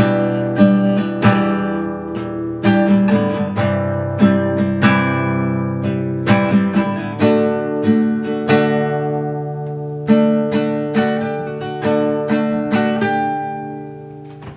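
Acoustic guitar music: plucked notes and strummed chords ringing over sustained low tones, dying away near the end.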